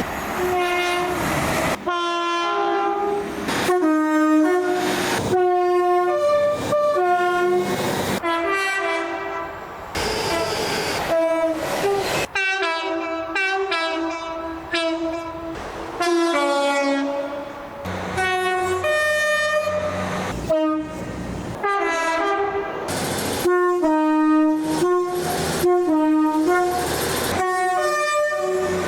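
Train horns sounding in a quick series of short and longer blasts, each a chord of several steady notes, along with train running noise. The blasts change abruptly from one to the next, like separate clips cut together.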